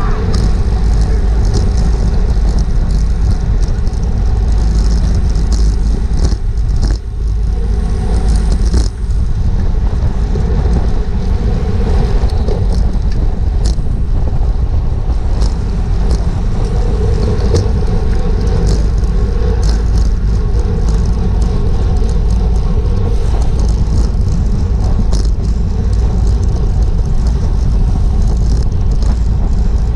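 Wind buffeting the microphone of an action camera riding on a racing bicycle at speed, a steady low rush, with scattered clicks and rattles from the bike over the road surface.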